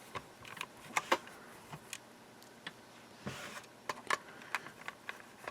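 Scattered light clicks and taps of a screwdriver working on the plastic case of a small label maker, with a short scrape about three seconds in.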